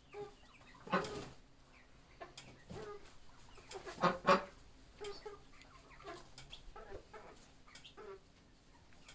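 Chickens clucking in short, scattered calls, louder about a second in and again around four seconds in.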